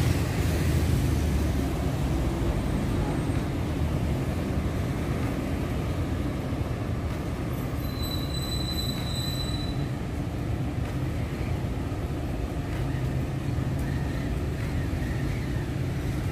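Steady low rumble of road traffic on a city avenue. About eight seconds in a brief high-pitched tone rings out for a second or so.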